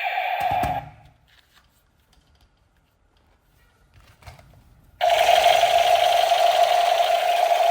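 A loud, steady buzzing tone that cuts off about a second in, leaving near silence with a couple of faint clicks, then starts again suddenly about five seconds in.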